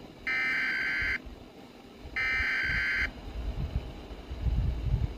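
Two Emergency Alert System (SAME) header data bursts, each a steady, high electronic tone about a second long, with a second's pause between them. Low, uneven rumbling noise follows, loudest near the end.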